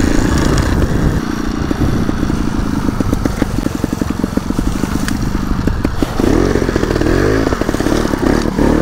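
Two-stroke trial motorcycle engine running under throttle as the bike rides off, with several quick rev rises and falls in the second half.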